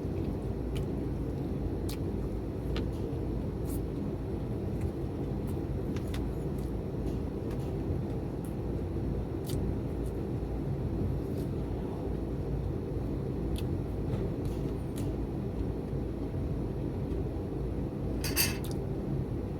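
Eating sounds: faint scattered clicks of chewing and utensils over a steady low background rumble, with one louder, brief noise near the end.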